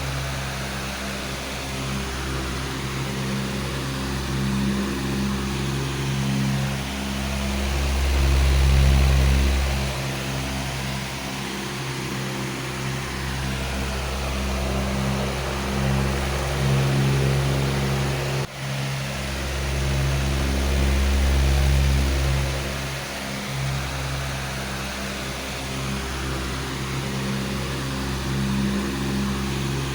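Powerful electric fan running steadily: a motor hum with several steady low tones under a broad rush of moving air, its loudness slowly swelling and ebbing. About two-thirds of the way through there is a momentary dip in the sound.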